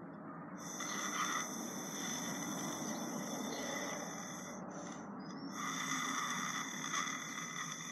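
Breath blown steadily through the thin straw of a bubble-blowing toy to inflate a bubble, an airy hiss. Two long blows with a brief pause for breath about five seconds in.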